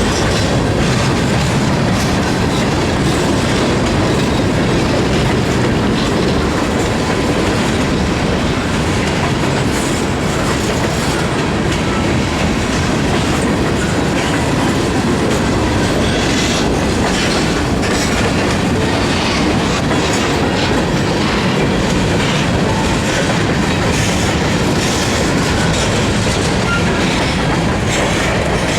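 CSX freight train's cars rolling past, loud and steady, their wheels clicking over the rail joints.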